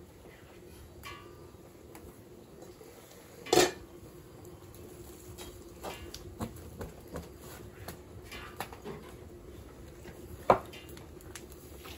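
A few sharp clinks and knocks at a wood-fired cooking stove with a metal pot on an iron grate. The loudest comes about three and a half seconds in and another near the end, with fainter ticks between them over a faint steady hum.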